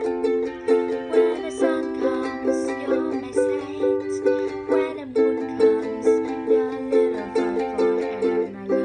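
Ukulele strummed in a steady rhythmic pattern, accented strums about twice a second, the chords changing every second or two.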